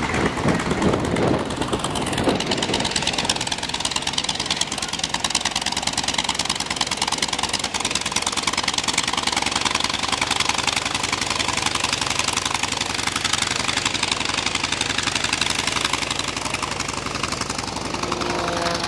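Piston engines of vintage propeller warplanes running at taxi power at close range: a steady, dense clatter of engine firing.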